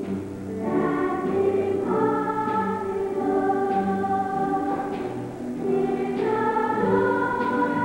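School choir singing a melody of held notes that change about once a second.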